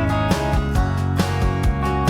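Background music: upbeat acoustic guitar strumming with a steady beat.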